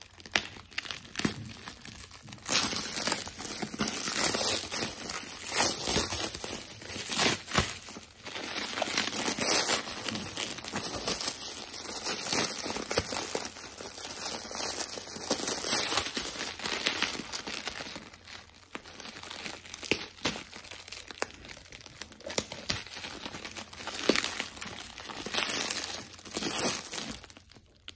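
Clear plastic stretch wrap crinkling and crackling as hands pull and peel it off a bundle of tea packs: a continuous run of crisp crackles that stops abruptly near the end.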